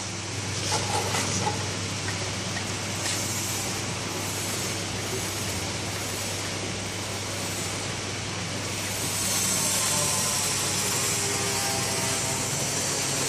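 Factory machinery running: a steady mechanical noise over a low hum, with a few light clicks about a second in. About nine seconds in it grows louder and hissier.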